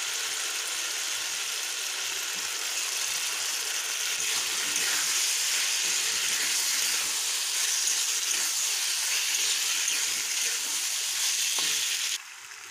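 Boiled pasta sizzling in hot, oily tomato masala in a kadai while it is stirred with a spatula: a steady frying hiss that cuts off suddenly near the end.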